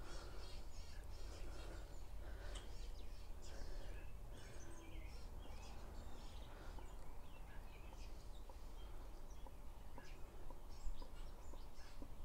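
Motor oil glugging faintly and irregularly from an upended plastic quart bottle as it drains through a funnel into a motorcycle's oil fill.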